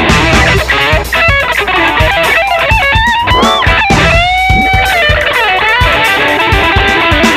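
Electric guitar played through a BOSS PS-6 Harmonist pitch-shifter pedal and a BOSS digital delay: a run of notes with bends and pitch slides, then a held note that slides about four seconds in.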